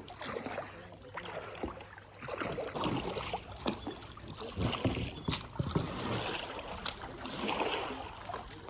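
Water splashing and lapping around a kayak in irregular swishes.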